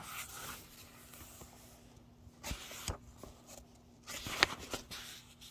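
Handling noise from the phone filming the book being moved: soft rustling and several light knocks, the sharpest about four and a half seconds in.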